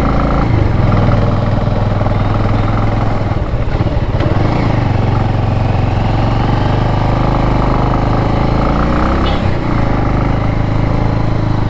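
Motorcycle engine running steadily while riding, with a change in engine pitch near the start and again about nine and a half seconds in.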